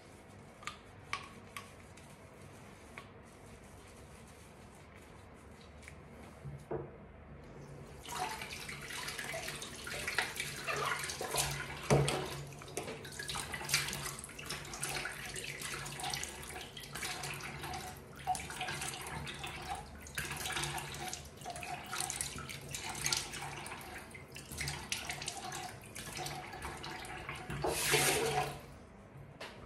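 Bathroom sink tap running while cleanser is splashed and rinsed off the face by hand. It starts about eight seconds in and stops near the end after a brief louder gush.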